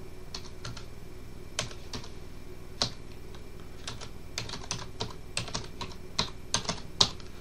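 Typing on a computer keyboard as an email address is entered: separate key clicks, sparse at first, then quicker runs of keystrokes in the second half.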